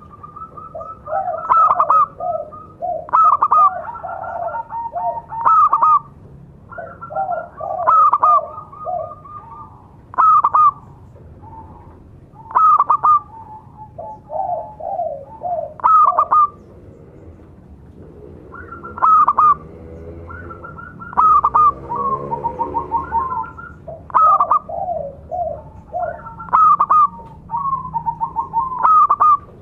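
Zebra doves (local perkutut) cooing in repeated quick phrases, a fresh phrase every two to three seconds. Each phrase opens with sharp, high clipped notes and runs into a rapid pulsed trill lower down, and the calls of more than one bird overlap at times.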